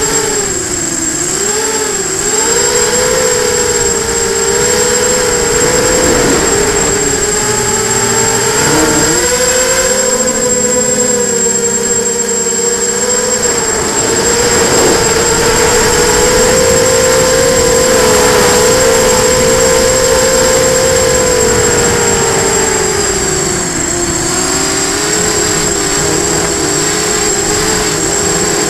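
Onboard sound of an FPV hexacopter's electric motors and propellers whining, the pitch rising and falling with throttle and dipping about 24 seconds in, with a constant high-pitched tone and wind rumble on the microphone.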